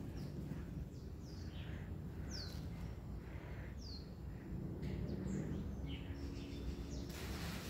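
Quiet background with a few short, high bird chirps that fall in pitch, spread over the first few seconds. A soft rustling noise starts near the end.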